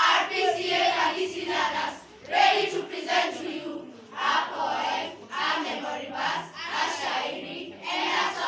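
A group of children's voices chanting in unison in short phrases of about a second each, with brief pauses between them.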